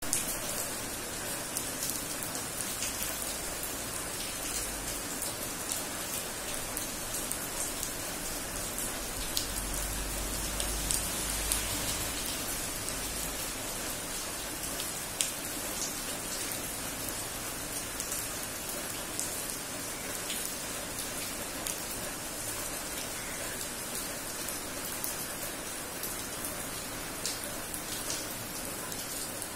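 Steady rain falling on wet paving tiles and a concrete road: a constant hiss dotted with sharp pats of single drops. A low rumble swells underneath for several seconds about a third of the way in.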